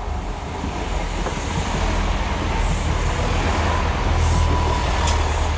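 A Class 166 diesel multiple unit running through a station without stopping: a low rumble of engine and wheels on rail that grows louder as the train draws level. In the second half come a thin whine and a few short high-pitched hisses.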